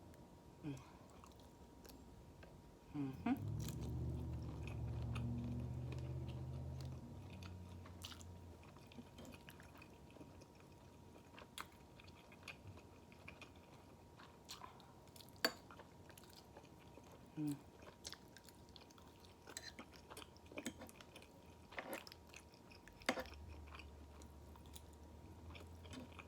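Close-miked chewing and mouth sounds of a person eating blackened shrimp with Alfredo pasta, with many small wet clicks. A low rumble rises about three seconds in and fades over the next few seconds, and comes back near the end.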